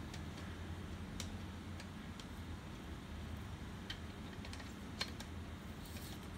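Scattered light clicks and taps of an HP LaserJet P3015's plastic fuser assembly being handled and fitted into the printer, the sharpest click about five seconds in, over a steady low hum.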